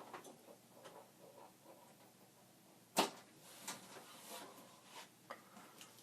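A sharp click about three seconds in, followed by a few fainter ticks, over faint room tone: small handling sounds of hands working on electronics gear.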